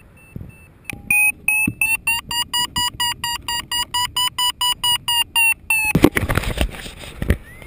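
Flymaster B1 paragliding variometer beeping rapidly from about a second in, about four to five short high beeps a second with the pitch edging upward: the climb tone that signals rising in lift. Near the end the beeping stops and rustling and wind buffeting on the microphone take over.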